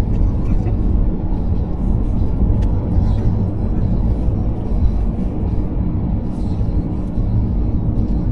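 Car driving at highway speed: a steady, low rumble of tyres on the road and the engine.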